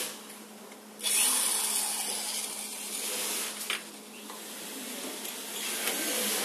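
Rubbing and scraping noise from parts being handled, starting suddenly about a second in and continuing as a steady hiss-like rustle.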